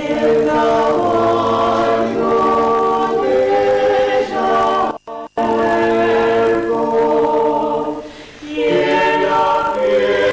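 Mixed vocal quartet of two women and two men singing a cappella in close harmony, holding long chords. There is a short break about five seconds in and a brief softening near eight seconds before the chord swells again.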